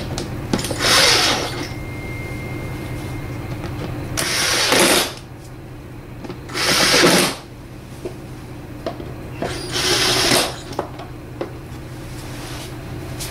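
Power screwdriver running in four short bursts of just under a second each, driving the T25 Torx screws that hold down the air filter box cover.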